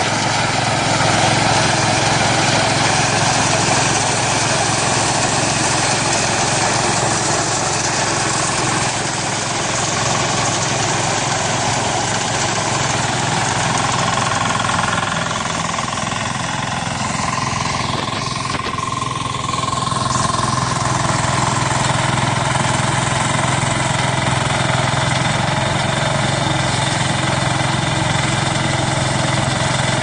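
Small crawler combine harvester running steadily under load while cutting and threshing wheat: its 15 hp diesel engine together with the mechanical noise of the cutter and threshing drum. A thin whine comes in over the middle part as the loudness dips a little.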